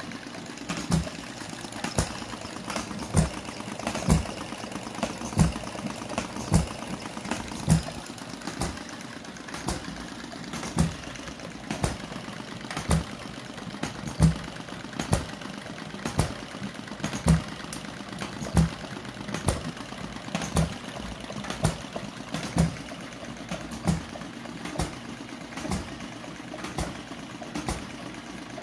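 Small model engine running, with a sharp knock about once a second over a steady mechanical background.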